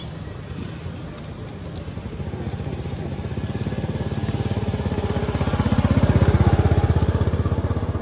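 A motorcycle engine going past, its rapid low pulsing growing louder to a peak about six seconds in and then easing off.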